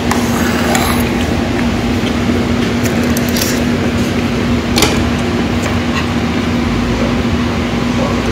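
Steady machine hum with a constant low tone, with a few light clinks of a metal spoon and chopsticks against stainless steel bowls.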